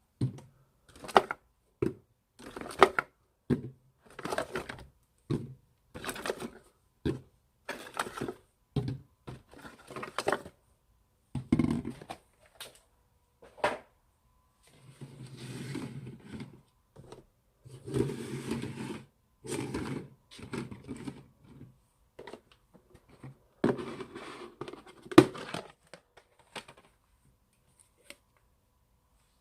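Old slime being squished and pressed by hand: a run of short squishes about one a second, then longer stretches of steady squishing and crackling about halfway through.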